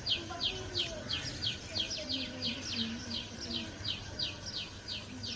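A bird calling in a steady series of short, high, downward-sweeping chirps, about three a second.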